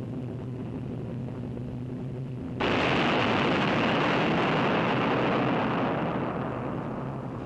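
Bomb explosion on an old film soundtrack: a steady low drone, then a sudden loud roar of blast noise about two and a half seconds in that dies away over the last second or two.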